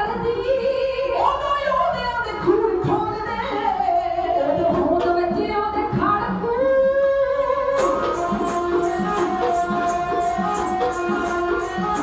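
Punjabi dhadi singing by women's voices with a sarangi, long held notes sliding in pitch. About two-thirds of the way in, a steady beat of hand-drum strokes, typical of the dhadd, joins.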